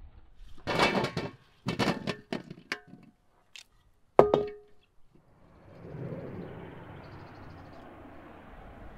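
Small boiled potatoes tumbling from an enamel basin into an enamel baking tray, a few quick clattering bursts with short metallic ringing. About four seconds in comes one sharp, ringing clank of enamelware being set down, the loudest sound, followed by a steady low hiss.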